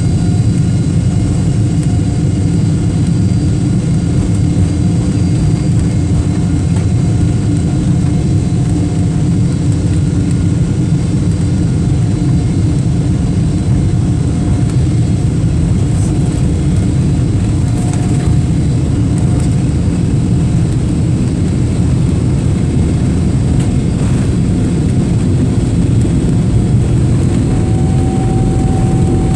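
Airliner jet engines running on takeoff: a loud, steady low rumble with a thin high whine over it.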